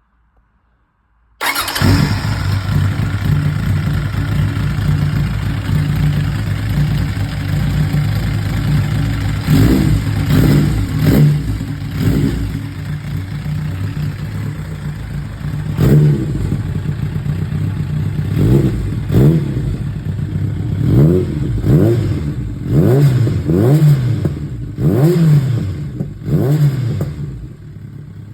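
Kawasaki Zephyr 1100's air-cooled inline-four running through a Nojima silencer-less exhaust kit. It comes in suddenly about a second and a half in and idles steadily, then is blipped in short revs from about ten seconds in, the blips coming closer together near the end.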